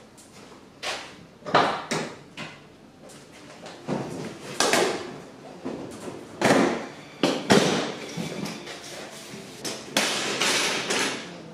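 Irregular knocks, thuds and scrapes of workshop handling, about a dozen separate bumps, including a metal-legged folding table being pulled out and set down.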